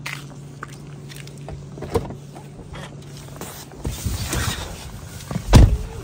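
A Tesla Model 3's door being opened, someone climbing into the seat, and the door shut with a solid thump about five and a half seconds in. A low steady hum and a few light clicks and steps come before it.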